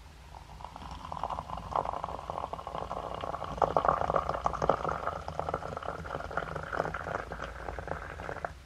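Water poured in a thin stream from a glass spout into a glass teapot of loose tea leaves, splashing and bubbling. It starts about half a second in, grows fuller, and stops abruptly near the end.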